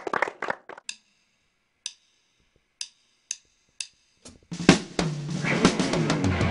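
A fast run of sharp strikes dies away. Then a drummer counts in with ringing stick or hi-hat clicks, two slow then two quicker. About two-thirds of the way through, the full band comes in with drum kit and bass.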